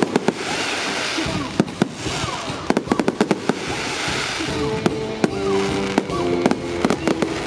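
Fireworks display: clusters of sharp bangs and crackles from bursting aerial shells. Music from the show's soundtrack plays underneath, with sustained notes coming in about four and a half seconds in.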